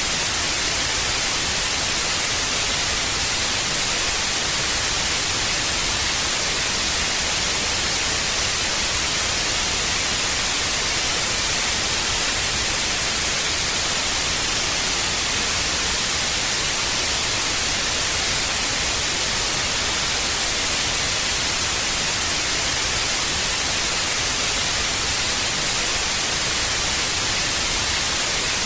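Television static: a steady, even hiss, strongest in the treble, with no change in level.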